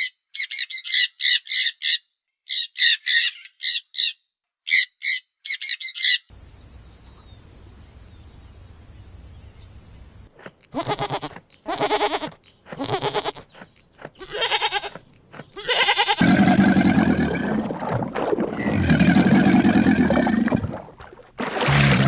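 A run of different animal calls one after another: rapid high chirps in quick groups, then a steady high buzz, then separate pitched calls, and from about 16 s in, loud, low, drawn-out calls.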